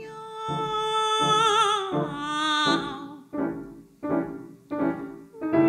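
Operatic mezzo-soprano singing a comic song in 'cat language' over evenly repeated piano chords. She holds a long note with vibrato that slides down about two seconds in, then moves on in shorter notes.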